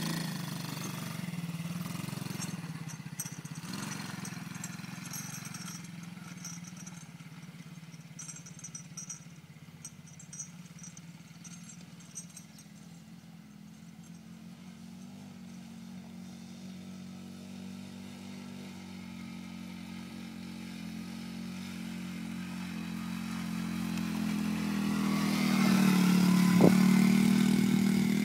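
A small children's ATV engine runs steadily, fading as the quad drives away. It grows louder again as a quad comes close, loudest shortly before the end.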